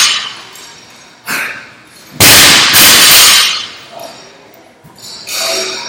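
Loaded barbell with bumper plates dropped from overhead onto the gym's rubber floor: a smaller knock, then about two seconds in a loud crash that rattles on for about a second.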